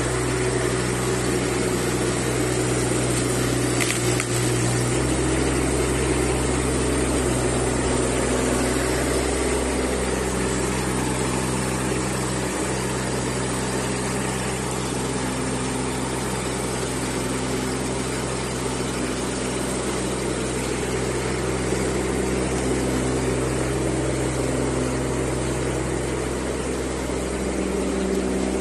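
Mini excavator's engine running steadily at a constant speed.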